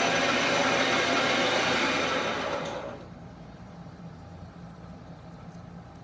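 Metal lathe cutting a steel shotgun barrel: a loud, rough, steady hiss of the cutting tool in the metal. The cut stops between two and three seconds in, and the sound falls away to a low steady hum.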